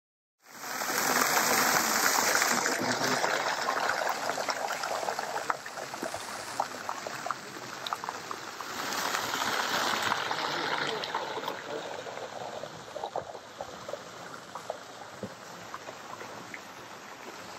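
Steady rush of running water with indistinct voices of people, louder in the first few seconds and again about nine seconds in.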